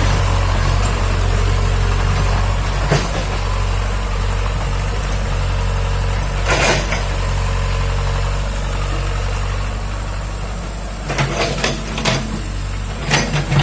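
Excavator engine running steadily, with a few sharp clanks: one about three seconds in, a louder one about six and a half seconds in, and a cluster of knocks near the end.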